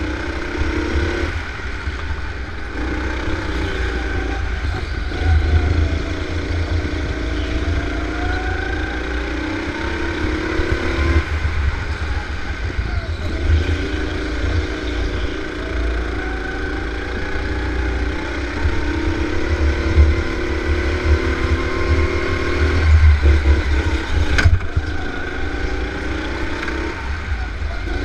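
Go-kart engine running hard, its pitch climbing and dropping again every few seconds as the kart speeds up on the straights and eases off for the corners, over a constant low rumble. There is one sharp click near the end.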